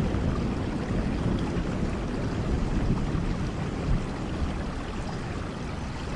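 Steady rain, a dense even hiss with a low rumble underneath that swells a little now and then.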